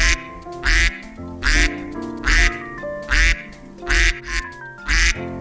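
Duck quacking, about seven evenly spaced quacks, over background music with sustained notes.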